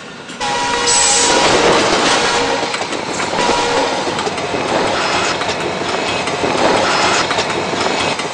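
A passenger train passing close by: a sudden loud onset about half a second in, then a steady rush of wheels on rail with clattering. A few held tones sound briefly near the start.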